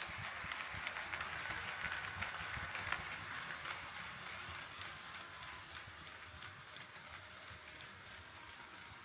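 HO scale model train rolling along KATO Unitrack, its wheels clicking rapidly over the rail joints over a steady rolling noise. It fades gradually from about three seconds in as the train moves away.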